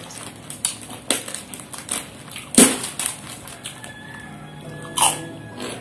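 Crisp white puffed crackers (kerupuk) crunching as they are broken and bitten, a few sharp crunches with the loudest about two and a half seconds in, over soft background music.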